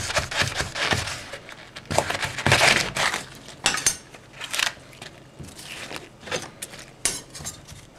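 Kitchen knife cutting and breaking the tough outer leaves off a raw artichoke: an irregular run of crisp crunches and clicks, busiest in the first three seconds and sparser after.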